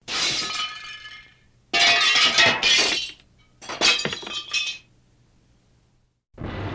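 Glass breaking: three crashes of shattering glass in quick succession, each trailing off into clinking shards.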